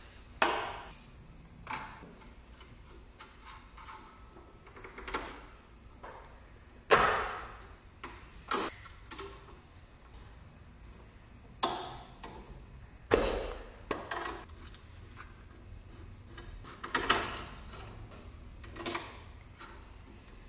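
Open-end wrench and metal brake lines clicking and knocking as the flare-nut fittings are loosened and the lines pulled off an ABS unit: about a dozen sharp, irregular clicks and clanks a second or two apart, with quiet between.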